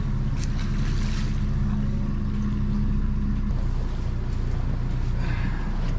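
Outboard motor running steadily at low speed as the fishing boat keeps moving, with a short splash about half a second in. The engine note changes slightly about three and a half seconds in.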